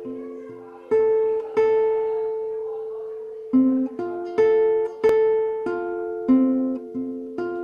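Music: a plucked string instrument playing a slow melody of single notes, each struck sharply and left to ring and fade.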